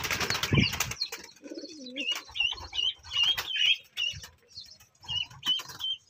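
Aviary birds' wings flapping loudly in the first second. A low coo follows, then a run of short, high chirps at about three a second, pausing briefly and starting again near the end.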